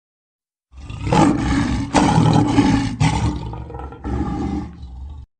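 Lion roaring: four loud calls of about a second each, one after another, the later ones a little quieter, cutting off suddenly.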